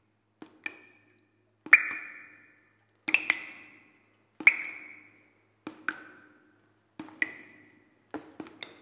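Water drops falling into a pool, each a sharp plip with a short ringing tone that dies away, in pairs or singly every second or so.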